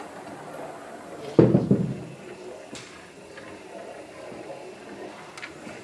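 A single loud thud about a second and a half in, dying away quickly, followed by a couple of faint clicks over low room noise.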